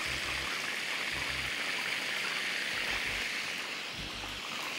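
Food frying in hot oil in a frying pan, a steady sizzle.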